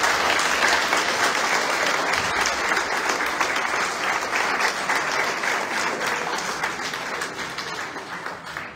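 Audience applauding, a dense patter of many hands clapping that tapers off toward the end.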